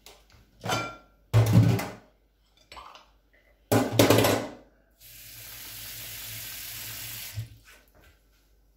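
Water running steadily from a kitchen tap for about two and a half seconds, starting about five seconds in. Before it come two loud, brief handling noises.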